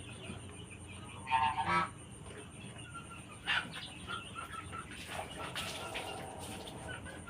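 A chicken sick with ngorok, a snoring respiratory disease, giving short calls while being held and hand-fed. There is a louder call about a second and a half in, a brief one about halfway, and a fainter, longer one later.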